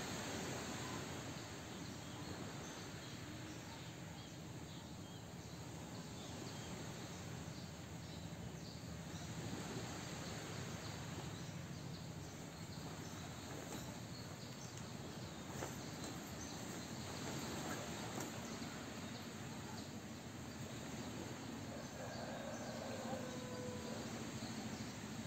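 Faint outdoor ambience with a steady chorus of insects in the trees. A brief faint call sounds near the end.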